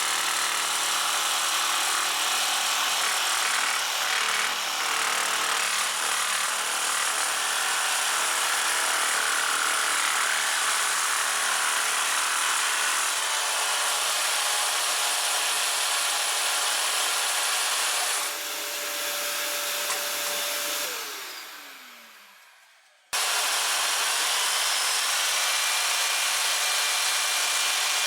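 Jigsaw mounted in a jigsaw table, cutting wood with a steady, rasping saw noise. About two-thirds of the way in it stops cutting and runs free with a steady hum, then is switched off and winds down with a falling pitch. The sawing starts again abruptly near the end.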